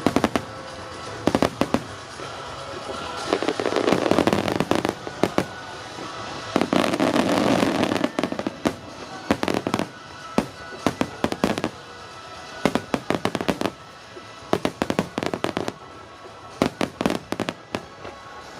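Starmine fireworks barrage: shells bursting in rapid volleys of sharp bangs, some in tight clusters, with two longer stretches of dense rumbling crackle about four and seven seconds in.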